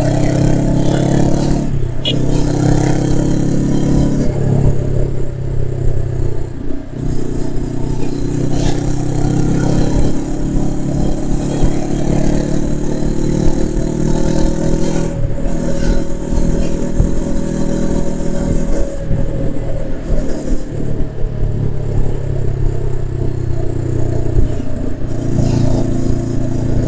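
Honda CB500X's 471 cc parallel-twin engine and exhaust running, its pitch drifting slowly up and down. The sound drops out briefly several times, around two, four, seven, fifteen, nineteen and twenty-five seconds in.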